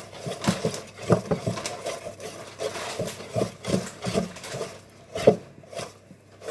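Hand whisk beating cake batter in a mixing bowl: irregular wet strokes with knocks against the bowl, several a second, one sharper knock about five seconds in.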